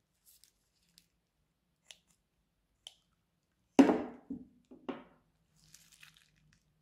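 Slime squelching as it is squeezed out of a plastic piping bag onto wet slime in a tray: one loud squish a little under four seconds in, then two smaller ones, with faint crinkles and ticks of the plastic bag before and after.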